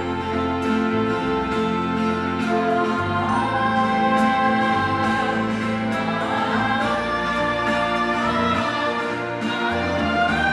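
Ensemble music from a live orchestra, with voices singing over the instruments.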